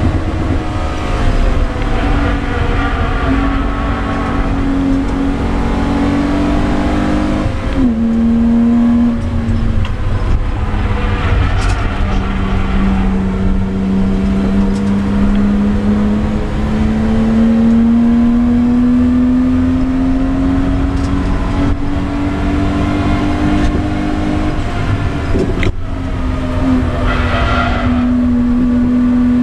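BMW E30 325i's straight-six engine at full load, heard from inside the stripped cabin with road and wind noise. Its note drops sharply about eight seconds in, then climbs slowly for much of the rest, with a short break about 26 seconds in.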